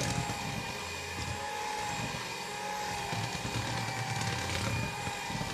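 Electric hand mixer running steadily with a constant motor whine, its beaters churning a thick butter, sugar and egg yolk cookie dough in a plastic bowl.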